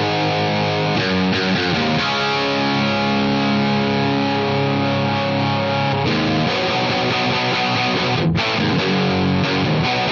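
Gibson Flying V electric guitar played straight into a Scarlett Scout tube amp head (two 6L6 power tubes), heard through a 4x12 cabinet loaded with Vintage 30 speakers: sustained chords that change every second or few, with a brief stop a little after eight seconds in.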